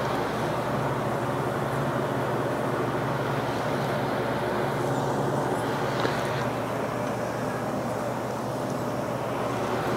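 Bench mill-drill's motor and spindle running steadily, a constant machine hum with a brief click about six seconds in.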